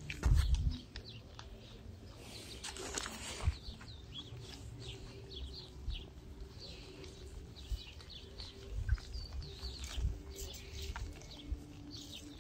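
Small birds chirping in short, scattered calls throughout, over a faint steady low hum. A brief low thump, the loudest sound, comes just after the start.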